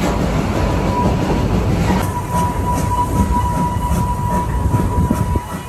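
Narrow-gauge steam train running, heard from an open-sided carriage: a loud steady rumble of wheels on rails, with a thin steady squeal joining about a second in.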